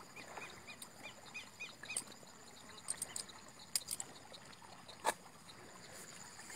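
Quiet field ambience: a quick run of short, repeated chirps from a small animal during the first two seconds over a steady high insect whine, with a few sharp clicks.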